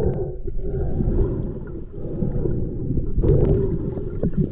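Muffled underwater sound of a river picked up by a submerged camera: a low, steady rumble of moving water with some gurgling, and a few small clicks and knocks near the end.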